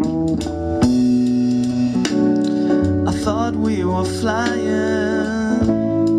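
A pop song with guitar, bass and drums; a wavering, singing melodic line comes in about halfway through.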